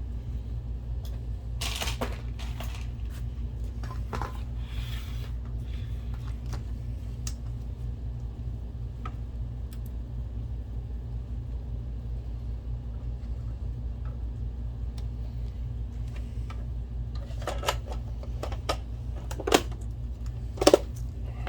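Light clicks and clinks of small projector parts and screws being handled, with a few sharper clicks near the end, over a steady low hum.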